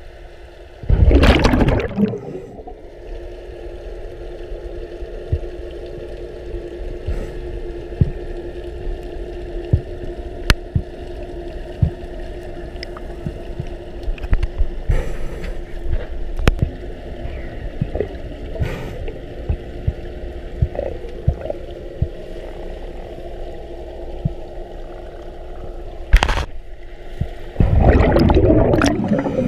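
Underwater sound from a scuba diver's head-mounted camera in an aquarium tank: a loud rush of water and bubbles about a second in as the diver goes under, then a steady low hum with scattered clicks. Near the end comes a sharp click followed by a long loud burst of bubbles, like a scuba regulator's exhaled breath.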